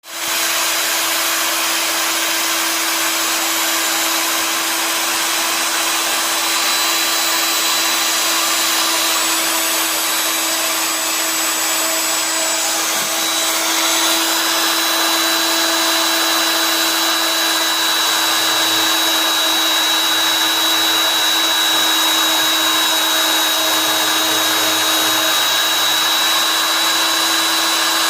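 CNC machine running steadily: an even rushing noise with a steady high whine and a lower hum.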